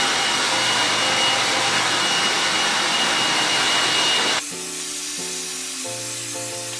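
Hand-held hair dryer blowing, with a steady high whine. About four seconds in it drops to a quieter blowing.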